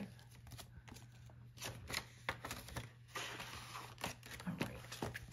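Paper banknotes and a clear plastic binder pocket rustling and crinkling in short, irregular scrapes as a stack of cash is slid into the pocket.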